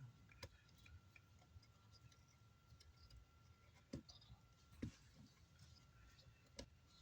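Near silence with a few faint, sharp clicks and a faint steady high tone underneath.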